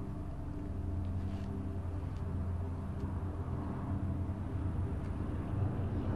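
A steady, low engine drone with a constant pitch.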